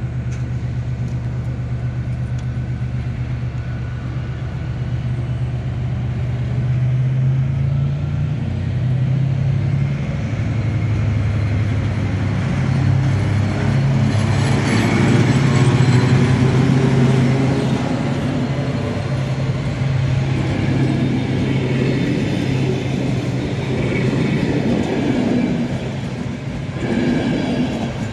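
ZSSK diesel locomotive pulling away with a passenger train: a steady low engine drone that grows louder after a few seconds and is loudest about halfway through as the locomotive passes, then the coaches roll past with wheel and rail noise.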